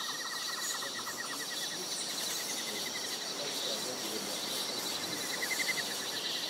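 Tropical forest insect chorus: steady high-pitched shrilling with rapid pulsing trills that fade out and return.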